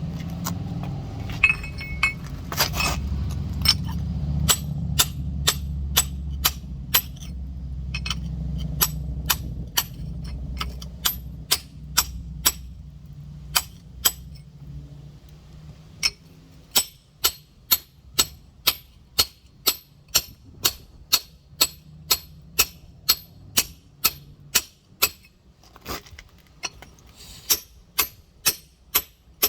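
Rock hammer tapping a large geode, sharp ringing clinks about twice a second, working along a crack line to split it. A low rumble sits under the first half and fades out.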